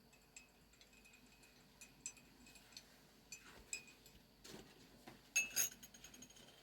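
Light, irregular clinks and ticks of small hard objects, some with a brief ringing tone, like glass or metal knocked together. Two louder clinks come close together about five and a half seconds in.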